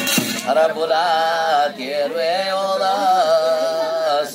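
A man singing a devotional chant in long, wavering held notes, with a percussive strike right at the start.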